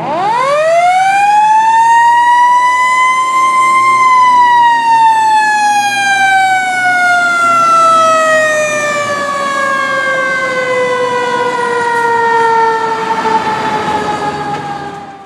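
A fire truck's siren winding up quickly to a peak about four seconds in, then slowly winding down in pitch until it cuts off.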